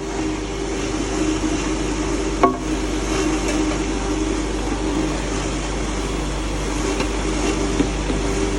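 Cattle feed grinder running steadily, a constant hum with a grainy hiss over it. One brief knock about two and a half seconds in.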